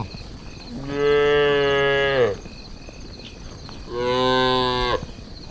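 Cattle mooing: two long, steady moos, the first about a second in and the second near the end, each falling slightly in pitch as it ends.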